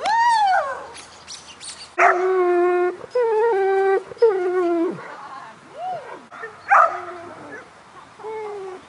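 A dog whining and howling in a string of about eight drawn-out, high-pitched cries, some held for about a second, others rising then falling away.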